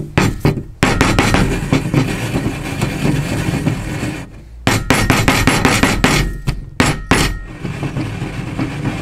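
A large glass French press of frothed milk knocked repeatedly on a tabletop to burst the big bubbles on top of the foam. There is a dense run of sharp knocks, a brief pause about four seconds in, then more separate knocks.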